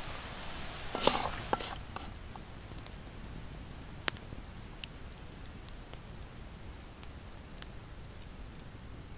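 Wood fire burning in a split-log stove, giving sparse crackles and pops, with a quick cluster of louder crackles about a second in.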